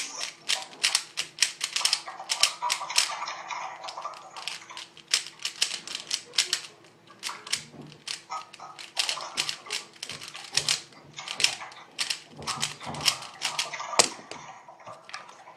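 A 3x3 Rubik's cube being turned fast, its plastic layers clicking and clacking in quick runs of several turns a second, with a short lull about halfway through.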